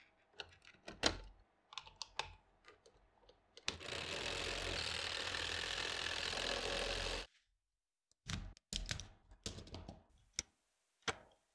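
Plastic Lego Technic parts clicking and snapping as a motor is fitted to a treadmill. Then the treadmill's electric motor runs its plastic tread belt steadily for about three and a half seconds and stops suddenly, followed by a few more plastic clicks and knocks as a small Lego vehicle is handled.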